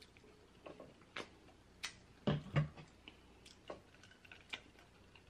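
Faint, scattered mouth clicks and lip smacks of someone chewing food close to the microphone, with a louder pair of short mouth sounds about two and a half seconds in.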